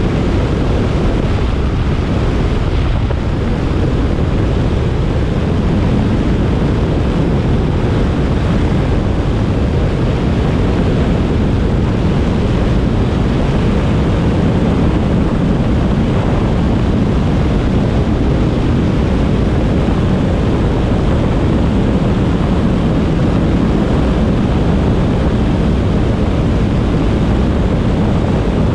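Steady, loud rush of slipstream air over a Schweizer 1-23 glider in flight, buffeting the microphone. There is no engine, only the airflow.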